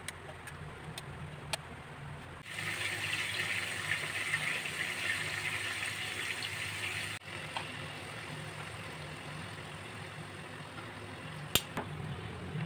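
Chunks of raw meat sizzling as they sear in hot oil in a frying pan, the sizzle loudest for several seconds in the middle, over a steady low hum. A few light clicks in the first two seconds and a sharp click near the end as metal tongs move the pieces against the pan.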